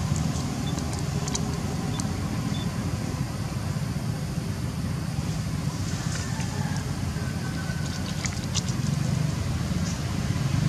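Steady low motor rumble, with a few faint clicks scattered over it.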